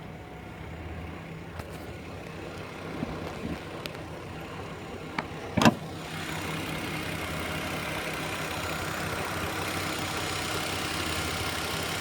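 2009 Volvo XC70 running at idle with a steady low hum, the buzzing that the owner traces to underneath the car at the passenger-side rear. A single sharp clack about six seconds in, after which the sound grows a little louder.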